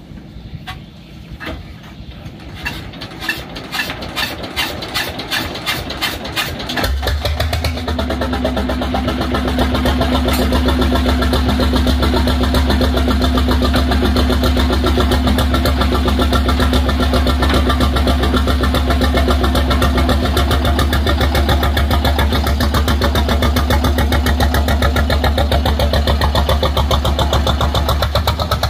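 Tianli 1130 single-cylinder diesel boat engine starting: separate firing strokes quicken over the first several seconds, then about seven seconds in it catches and settles into a steady, loud run.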